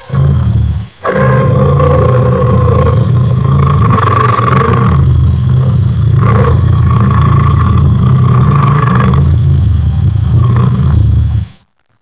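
Lion roaring, a loud, drawn-out roar with a deep rumble. It breaks off briefly about a second in, then runs on for about ten seconds and stops abruptly near the end.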